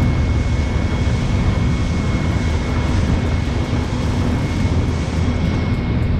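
Motorboat engine running steadily at speed, with loud rushing wind noise over it.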